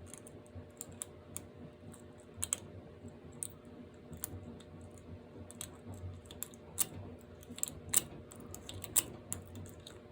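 Light, irregular metallic clicks and ticks of a lock pick and tension wrench working the pins inside a padlock's keyway.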